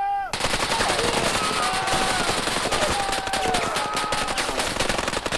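Automatic gunfire in a firefight, rapid shots packed close together into a continuous rattle that starts suddenly.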